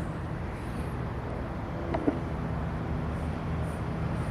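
Steady low background hum, with one faint click about two seconds in.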